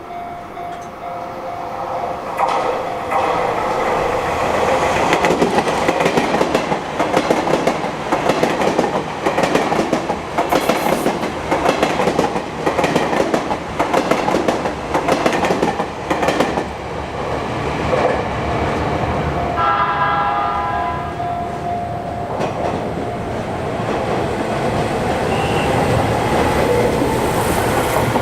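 Sotetsu Line electric train passing close by, its wheels clacking rapidly over the rail joints. A short horn blast sounds about two-thirds of the way through, and a slowly rising whine builds near the end.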